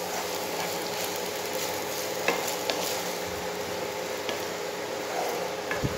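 Par-cooked rice frying gently in hot ghee in a kadhai on a low flame, a steady sizzle, while a wooden spatula stirs it, with a few short taps of the spatula against the pan.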